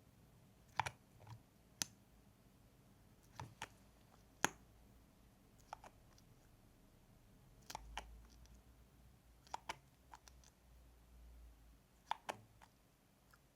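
Close-miked wet mouth sounds: short lip smacks and tongue clicks, some single and some in quick pairs, spaced irregularly a second or two apart.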